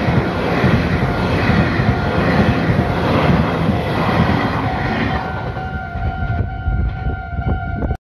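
Meitetsu red-and-white electric train passing close by at a level crossing: a loud rumble of wheels on rail that eases after about five seconds, leaving the crossing's warning bell ringing until the sound cuts off.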